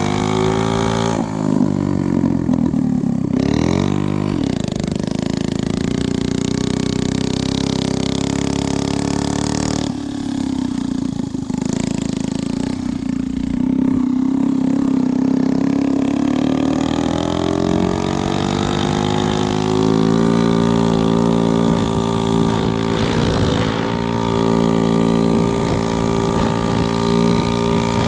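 Yamaha QA50 minibike's 50cc two-stroke single-cylinder engine running under way. The revs dip and climb back around two to four seconds in, drop again about ten seconds in, then climb steadily and hold higher for the last third.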